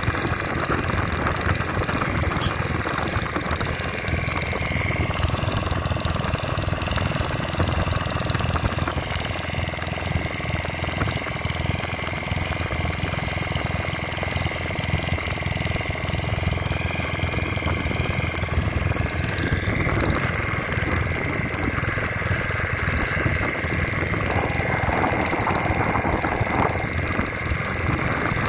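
A fishing boat's engine running steadily, a dense low chugging with a thin high whine over it.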